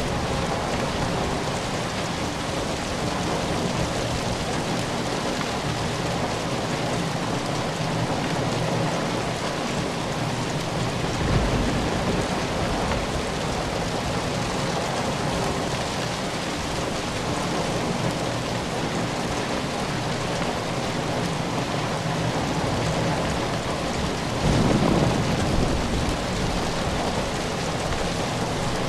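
Steady rain falling, an even hiss and patter, with two short low rumbles rising out of it: one about 11 seconds in and one about 25 seconds in.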